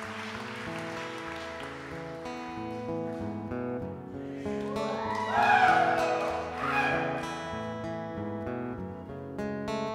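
Background music of acoustic guitar. A wavering higher sound rises and falls over it for about three seconds in the middle, the loudest part.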